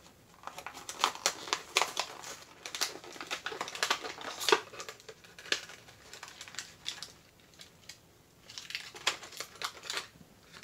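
Stiff plastic blister packaging crinkling, crackling and clicking as it is worked open by hand to free a 1/64 diecast truck. It goes quiet for a couple of seconds in the middle, then crackles again near the end.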